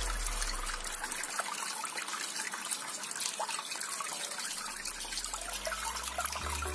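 Small decorative water fountain running, water trickling and splashing steadily. Background music fades in the first second and comes back near the end.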